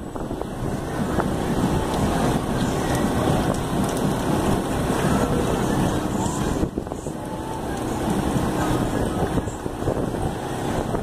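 Fire engine's diesel engine running as the truck rolls slowly forward, with wind rumbling on the microphone.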